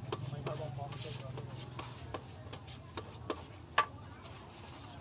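Irregular clicks and taps of a kitchen knife and food pieces on a stainless steel tray as food is cut and moved by hand, with a sharper clack about a second in and another near the end.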